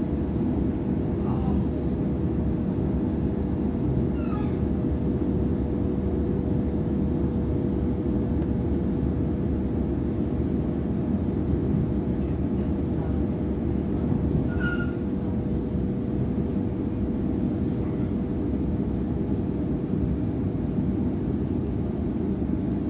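Cabin noise inside a Waratah A-set electric train running, a steady rumble of wheels on rail with a constant hum underneath, as the train pulls into a station platform.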